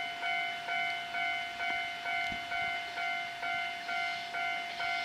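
Japanese railway level-crossing warning bell ringing, an electronic ding repeating evenly about twice a second.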